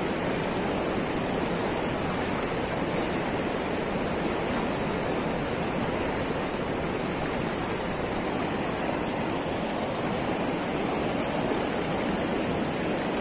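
Steady rushing of swift river water pouring over a concrete weir, an even wash of noise that does not let up.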